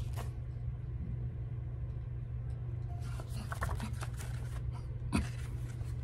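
Soft paper rustles and a few light clicks, with a sharper one about five seconds in, as a paperback coloring book is handled and its page turned, over a steady low hum.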